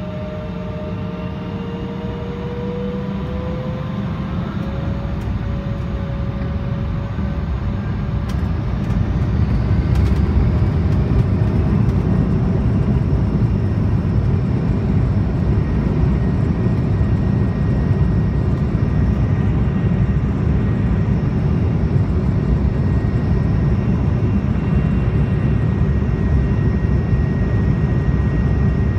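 Embraer 170's twin GE CF34-8E turbofan engines heard from inside the cabin, spooling up to takeoff thrust. A rising whine and growing loudness over the first several seconds give way to a loud, steady rumble of the takeoff roll.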